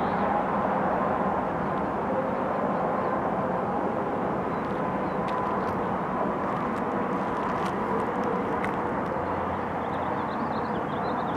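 Diesel locomotive running steadily as it approaches at a slow crawl, its engine hum carrying a few steady tones.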